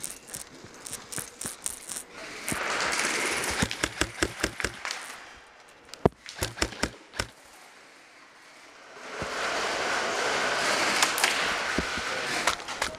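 Airsoft guns firing: strings of sharp cracks and clicks in rapid stretches, with a quieter lull a little past halfway.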